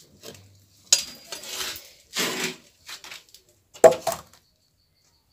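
Metal cooking pot scraping and clattering as it is lifted off a firewood stove, with a sharp metal clank about four seconds in as it is set down.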